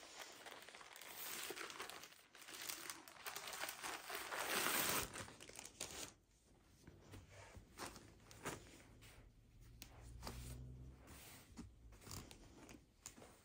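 Plastic mailer bag being torn open and crinkled, loudest about four to five seconds in. After about six seconds it gives way to quieter rustling and light ticks as clothing is pulled out and handled.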